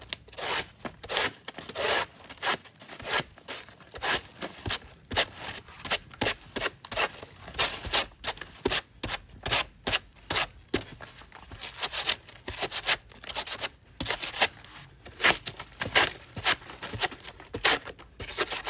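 A blade chopping and slicing into the soft, fibrous pseudostem of a banana plant, in rapid repeated strokes about two or three a second, each with a wet tearing scrape.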